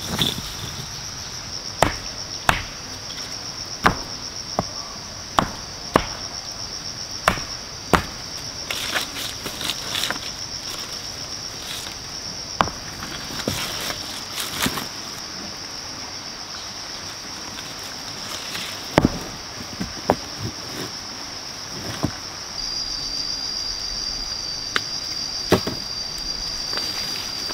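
Insects chirring steadily at a high pitch, with a second high steady tone joining near the end. Over it, sharp knocks every second or two as stones are set down and knocked against each other.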